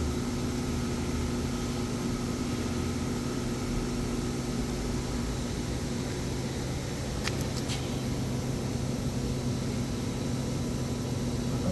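Air-cooled handheld laser welder running with a steady, even hum, with two or three short sharp clicks about seven seconds in.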